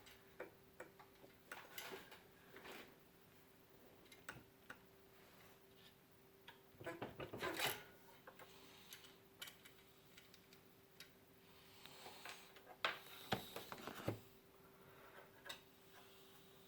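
Light clicks, taps and scraping of a water-cooled video card being handled and pushed into the PC case, coming in short clusters as it fails to seat. A faint steady hum runs underneath.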